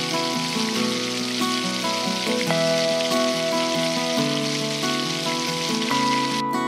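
Batter-coated eggplant slices sizzling as they deep-fry in hot oil, a dense steady hiss that stops abruptly near the end. Acoustic guitar music plays underneath.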